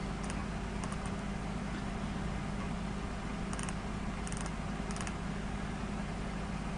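Steady low hum and hiss of room tone picked up by a desk microphone, with a few faint, short computer mouse clicks scattered through it.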